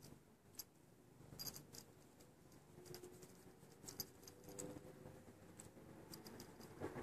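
Faint, scattered tinkles of a small bell on a cat's collar as the cat is held and petted, over quiet handling rustle.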